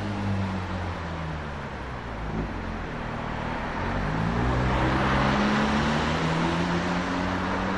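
Porsche 911 GT3's naturally aspirated flat-six engine running. The revs drop over the first seconds, then climb again from about halfway, with a swell of rushing noise around five seconds in.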